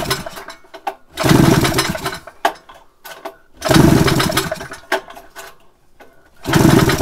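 Rotax 503 two-stroke twin being cranked over without firing, with a compression gauge in the magneto-side plug hole. It runs in repeated bursts of about a second each: the tail of one as it begins, then three more.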